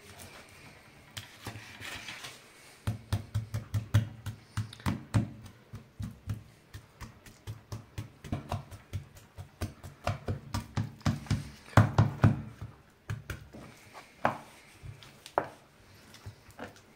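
Kitchen knife cutting through raw chicken leg quarters and knocking against a wooden cutting board: a quick run of taps and dull knocks, several a second, starting about three seconds in, with the loudest knocks about twelve seconds in.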